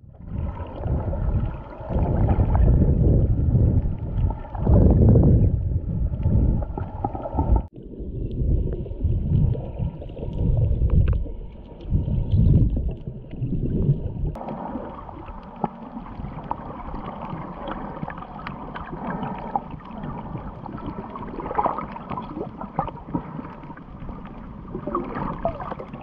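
Underwater water noise picked up by a snorkeling camera in its housing: muffled rumbling, sloshing and gurgling of choppy water, in strong uneven surges for the first several seconds, then a steadier wash. The sound changes abruptly twice, about 8 and 14 seconds in.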